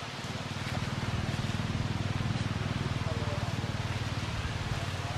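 A vehicle engine running steadily with a low, fast, even throb that builds up over the first second.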